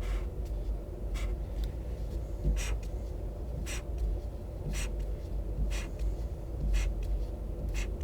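Highlighter tip swiped across paper in short strokes, about one a second, each a brief scratchy stroke, over a steady low hum.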